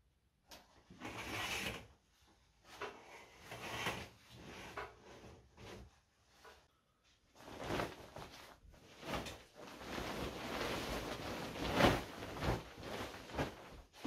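Duvet and bed sheets rustling as a bed is made, in irregular surges that become denser and louder in the second half.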